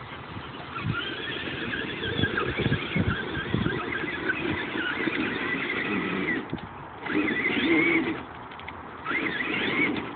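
Electric motors of an E-Maxx RC monster truck fitted with 775 motors whining up and down with the throttle, cutting out briefly a couple of times, over the rumble and knocks of the truck running across rough dirt.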